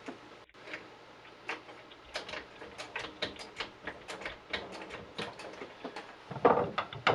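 Irregular light metal clicks and clinks, several a second, of an adjustable wrench working a small nut onto a bolt.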